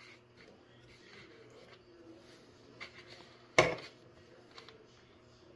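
Kitchen knife working on a wooden cutting board, trimming fat from pig skin: a few faint scrapes and light ticks, then one sharp knock of the knife on the board about three and a half seconds in. A faint steady hum runs underneath.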